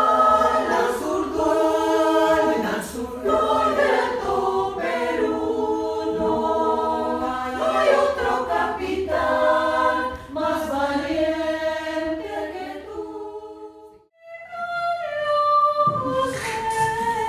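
Women's choir singing a cappella in several parts, holding long chords. The song dies away about thirteen seconds in, and after a short gap more voices start singing near the end.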